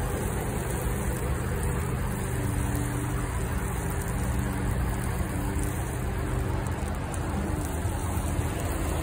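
A steady stream of water poured into a plant pot, splashing onto dry potting soil.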